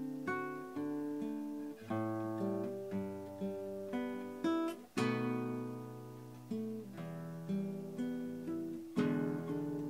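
Background music: a plucked acoustic guitar playing notes and chords, each struck and left to ring out.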